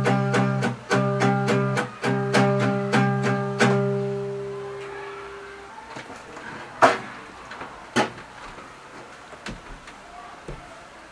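Acoustic guitar strummed in a steady rhythm, the last chord ringing out and fading away about four seconds in. Then two sharp knocks about a second apart.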